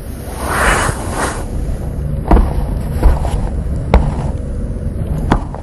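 A short rustling swell, then four sharp knocks spaced about a second apart, over a low rumble: the sound of a man shifting about in a cramped wooden hiding place.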